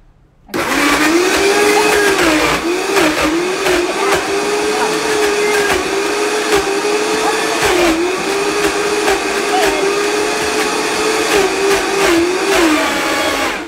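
Countertop blender running at high speed through frozen banana and pineapple while a tamper pushes the fruit down. The motor pitch dips briefly now and then as it bogs under the thick frozen load. It starts about half a second in and cuts off near the end.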